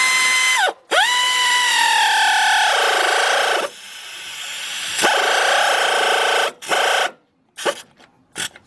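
Pneumatic air ratchet spinning, a high whine in several runs while tightening brake caliper bolts. In the second run the pitch sinks as the bolt snugs up and the ratchet slows. Another run follows about five seconds in, then a few short blips near the end.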